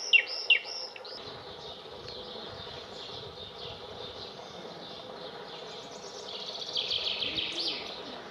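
Songbirds singing: a couple of loud falling whistled notes in the first second, then a faint chorus of high chirps, and near the end a louder rapid run of notes finishing in a brief high flourish, the song of a male common chaffinch.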